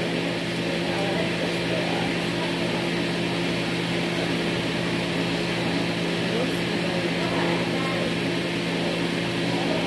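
Steady machine hum with a low drone.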